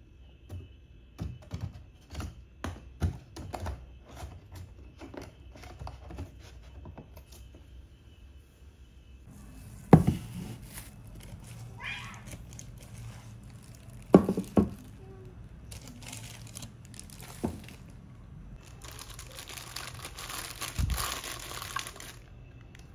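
Hard plastic parts of a small chopper clicking and knocking as they are handled and set down. Then three loud knocks as a plastic-wrapped acrylic box is handled on a wooden table, the first the loudest. Near the end, plastic wrap crinkles steadily as it is pulled off the box.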